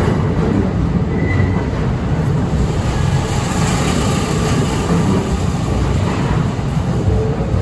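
Long Island Rail Road bilevel passenger cars rolling past at low speed: a steady rumble of steel wheels on the rails.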